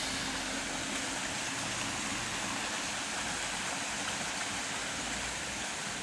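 Steady rush of a rocky stream's flowing water.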